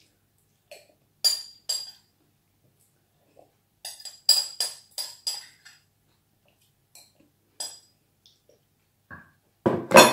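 A spoon clinking against a glass bowl in a run of short, ringing taps as the last of the mung bean soup is scraped out, busiest about four to five seconds in. Near the end comes a louder, duller knock as the glass bowl is set down on the table.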